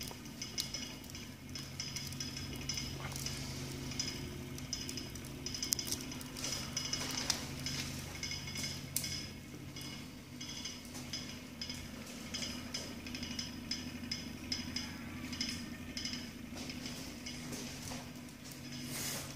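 Wood fire crackling in the firebox of a wood-burning kitchen stove, with scattered small pops and clinks over a steady low hum.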